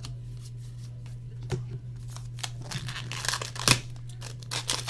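Crinkling and rustling of trading-card packs being handled, with a run of sharp clicks and crackles from about a second and a half in, loudest near the end.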